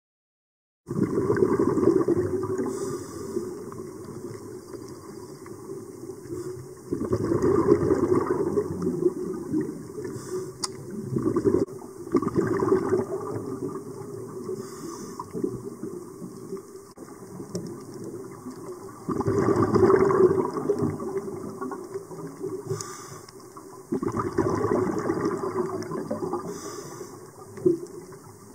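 Underwater bubbling of a scuba diver's exhaled breath from the regulator, coming in surges about every five or six seconds with each breath, muffled as heard underwater.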